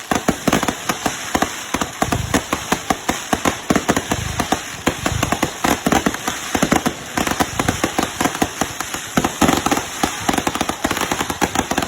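Consumer fireworks going off: a dense, irregular run of sharp pops and bangs, several each second, with crackle between them.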